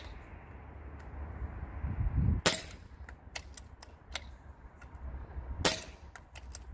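Gamo Boxer bullpup PCP air rifle firing twice, two sharp cracks about three seconds apart, with lighter clicks of the bolt being worked between shots.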